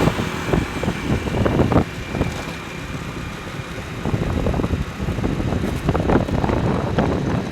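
Wind rushing and buffeting on the microphone of a moving motorcycle, in irregular gusts over a steady low rumble.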